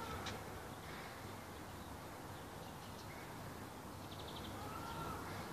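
Outdoor garden ambience with birds calling: a quick high chirping trill about four seconds in and a slurred, arching whistled call near the end, over a steady faint hiss and low hum.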